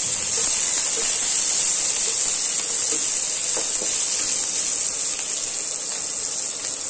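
Sliced onions sizzling steadily in hot oil with cumin seeds in a kadai, in the first minutes of frying.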